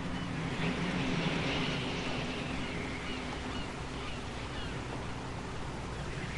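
Outdoor ambience: scattered short bird chirps over a steady low drone and an even background hiss.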